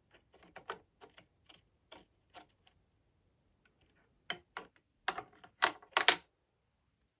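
Wooden toy wrench turning a wooden bolt in a vintage LEGO wooden toolbox: a run of light wooden clicks and ticks. About four to six seconds in comes a cluster of louder wooden clacks and knocks as the pieces in the box are handled.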